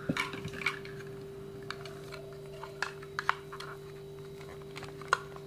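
Light, scattered clicks and taps of plastic toy fruit and vegetable pieces being handled and fitted together, over a steady low hum.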